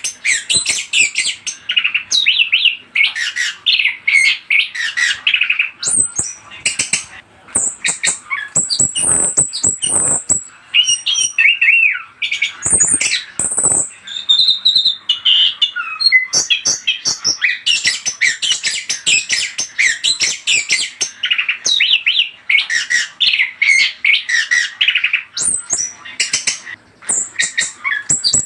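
Chestnut-capped thrush (anis kembang) singing continuously: a fast, varied run of whistled and chattering notes mixed with harsher squawk-like notes and a few sharp clicks.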